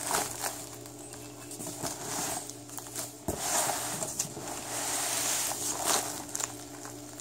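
Thin black plastic wrapping rustling and crinkling as it is pulled off a cardboard box, in repeated swells, with a single sharp knock about a third of the way in as the box bumps the table.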